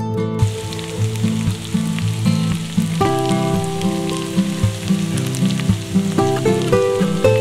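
Diced potatoes, green peppers and onions sizzling in a frying pan, the hiss starting about half a second in. Acoustic guitar music plays underneath.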